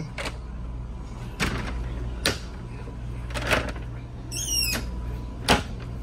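Wooden cabinet doors being pulled and pushed shut over the motorhome's bunk beds: a handful of separate knocks and clicks, with a short high squeak about four and a half seconds in, over a steady low hum.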